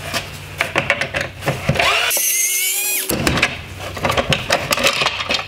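A small cordless electric screwdriver whines for about a second, about two seconds in, its pitch dropping as it stops, backing out a T20 Torx screw. Before and after it come clicks and knocks of hard plastic headlight parts being handled.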